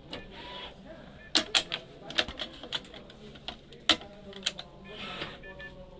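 Sharp, irregular clicks and knocks of a badminton stringing machine's mounting arms and clamps being handled and loosened, about a dozen in all, the loudest a pair about one and a half seconds in and another about four seconds in.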